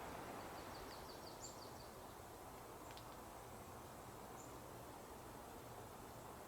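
Faint outdoor ambience with a songbird's rapid high trill of about ten notes in the first two seconds, two short very high calls, and a single click about three seconds in.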